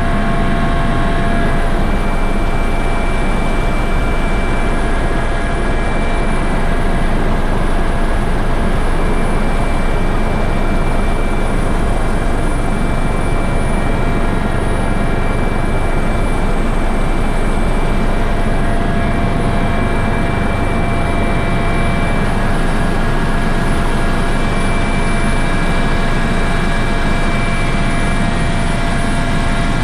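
Coast Guard helicopter in flight, heard from inside the cabin: loud, steady engine and rotor drone with a constant high whine.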